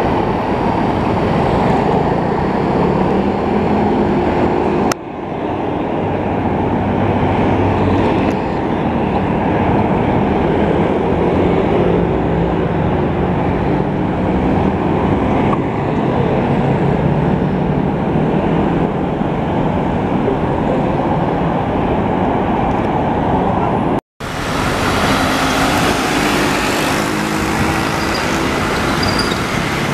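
Busy city street traffic: motor scooters and cars passing close by, with a street sweeper truck's engine running among them. The sound changes sharply about five seconds in and drops out for a moment near the end, where the footage is cut.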